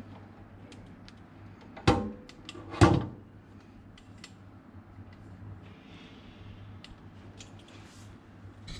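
Two loud knocks about a second apart from hard objects being handled, with scattered light clicks and a faint steady low hum.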